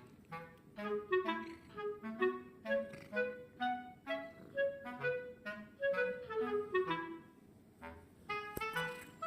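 Background music: a light melody of short, quick notes in a steady rhythm, several notes a second, with a brief pause in the melody shortly before the end.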